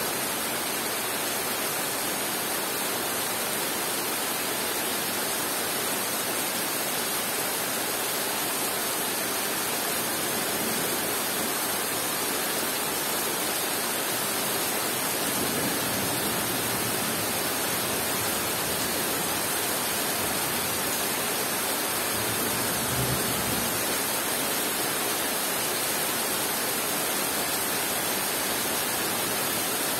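Heavy rain falling steadily on broadleaf forest trees: a dense, even hiss of drops on leaves.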